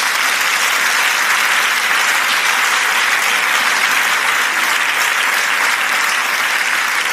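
A live audience applauding steadily.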